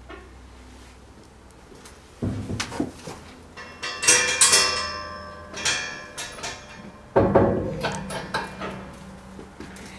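Metal stall gate and its fittings clanking and rattling as they are handled, in two bouts starting about 2 s and 7 s in, with bright ringing metallic clinks around the middle.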